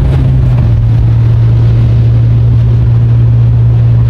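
Steady low drone of a vehicle's engine and road noise inside the cab while driving, over a constant rushing noise. The pitch drops a little about half a second in and then holds steady.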